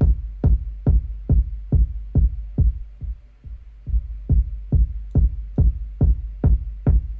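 Electronic kick drum looping in a beat, about two hits a second, each with a long deep boom. The hits go quieter and thinner about three seconds in, then come back, as the kick's filter is adjusted.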